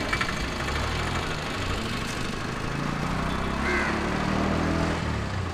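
A motor vehicle's engine idling: a steady low hum that holds an even pitch from about half a second in until just before the end.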